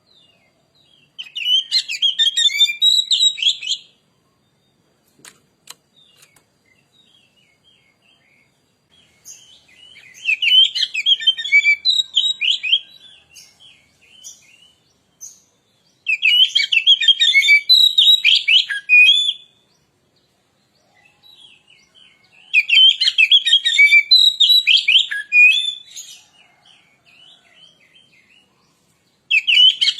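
Oriental magpie-robin (kacer) singing in quick, varied phrases, in five bursts of about three seconds each with pauses between. This is full, vigorous 'gacor' song, the kind played as a lure recording to get other magpie-robins singing.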